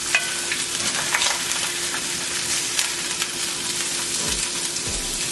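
Salmon fillets and diced onions sizzling steadily in a hot pan that is not nonstick, with a few short scrapes and taps of a plastic slotted spatula as the fillets are turned over and their stuck skin is pried loose.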